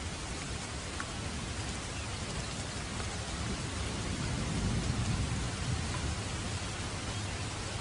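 Steady rain falling on a surface, with a low rumble of distant thunder that swells and fades about halfway through.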